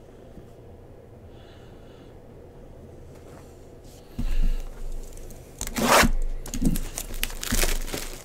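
A thump about four seconds in, then rustling and tearing as a 2022 Bowman Baseball jumbo card box is handled and its packaging torn open.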